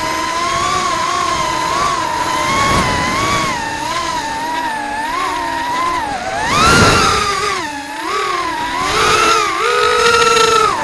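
Shendrones Shrieker FPV racing quadcopter's brushless motors and propellers whining in flight, the pitch wavering up and down with the throttle. There is a sharp surge about six and a half seconds in, and the pitch climbs and holds higher near the end.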